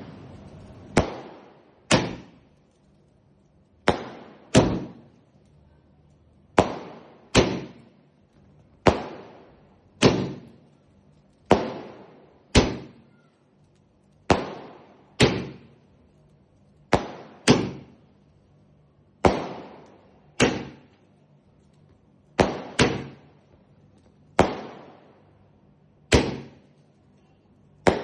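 A 30-shot multi-shot firework cake firing: a string of about twenty sharp bangs, one every second or so at uneven spacing, each followed by a short echoing tail.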